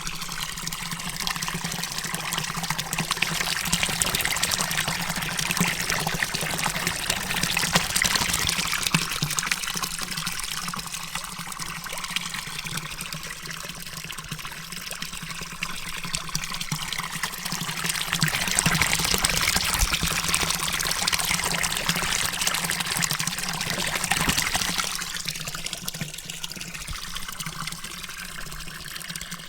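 Water running at a fountain: a steady splashing trickle that swells and eases a little over time.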